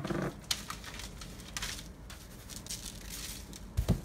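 Paper crinkling and rustling as a raw tuna steak is handled and turned over on it, with a dull thump near the end.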